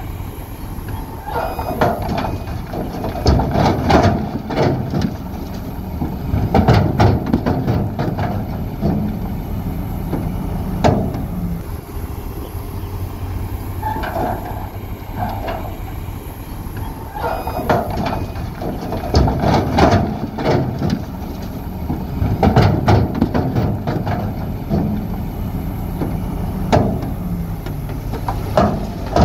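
Heavy diesel construction machinery working: a steady engine note, broken every few seconds by loud bursts of clattering and scraping.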